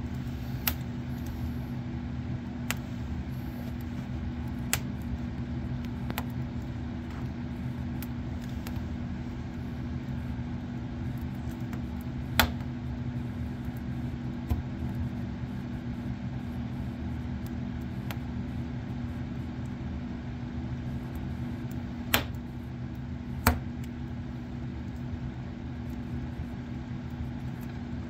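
Split logs burning in a wood stove, crackling with scattered sharp pops over a steady low hum.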